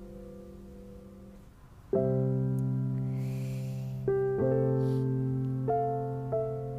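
Soft background piano music. A chord fades out, then after a short lull a new chord is struck about two seconds in, and a few more chords and notes follow, each left to ring and slowly fade.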